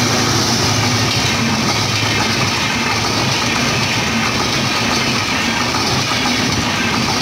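Indian Railways WDP4D diesel-electric locomotive passing close by with its train, the diesel engine giving a steady low hum over the loud, even rumble of the coaches rolling along the track.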